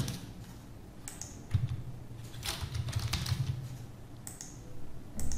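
Typing on a computer keyboard in short runs of keystrokes, the busiest about two to three seconds in.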